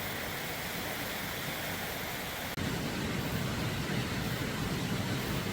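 Steady rushing noise of a valley stream. A cut about halfway through brings a louder, rougher, low-rumbling stretch of the same noise.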